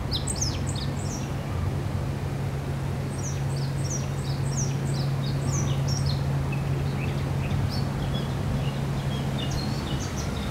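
Outdoor waterside ambience: small birds chirping in clusters of quick, high, downward-sliding calls over an even rumble of wind or water noise. A steady low hum runs underneath and stops near the end.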